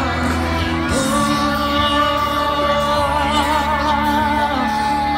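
Music with a singer holding long notes, the pitch wavering on some of them, over a steady bass.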